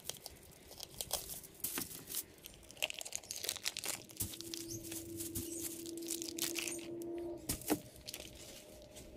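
Plastic packaging of a whole raw chicken being cut open with a knife and crinkled as the bird is pulled out onto aluminium foil: irregular crackling and tearing rustles.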